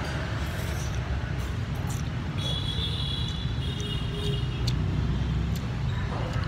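Steady street traffic noise with a continuous low rumble. A thin high-pitched tone sounds from about two and a half seconds in until nearly five seconds, with a few faint clicks scattered through.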